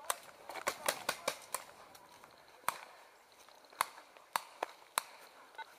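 Paintball markers firing: a quick run of sharp pops in the first second and a half, then single shots spread out over the rest.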